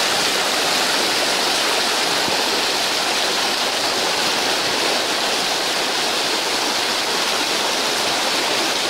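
Rain-swollen muddy floodwater rushing through a channel in a fast, churning current: a steady, unbroken rush of water.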